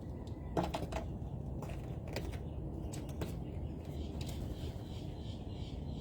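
A few scattered sharp clicks and taps over a low steady rumble, with faint bird twittering coming in during the second half.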